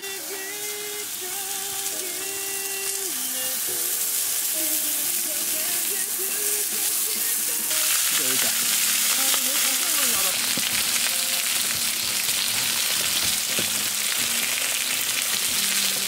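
Raw pork belly slices sizzling on a hot griddle pan, the sizzle swelling over the first several seconds and then holding steady.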